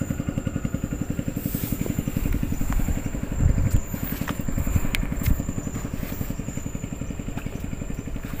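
A small engine running steadily with a fast, even beat, with a few faint clicks over it.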